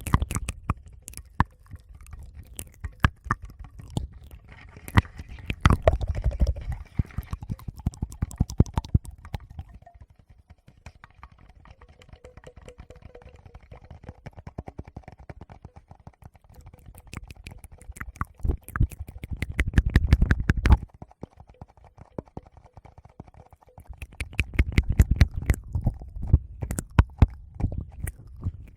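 Close-miked ASMR mouth sounds and fingers rubbing and tapping on a Tascam recorder's microphones: dense wet clicks and crackles over low rumbling thuds, with a quieter stretch in the middle.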